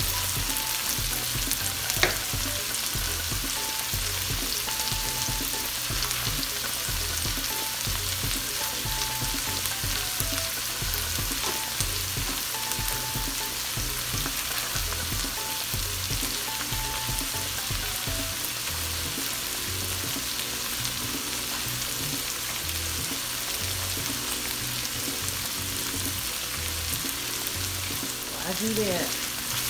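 Peas and carrots sizzling steadily in hot oil in a wok, with one sharp click about two seconds in.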